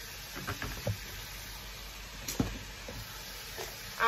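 A few soft knocks and clicks of kitchen utensils and seasoning containers being handled while seasoning is spooned into a pot, over a low steady hiss.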